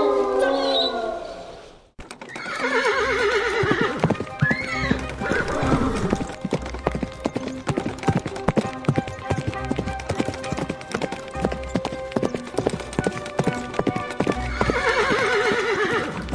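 A wolf's howl fades out over the first two seconds. After a cut, a horse whinnies with a quick trembling call over rapid clip-clopping hoofbeats and background music. A second whinny comes near the end.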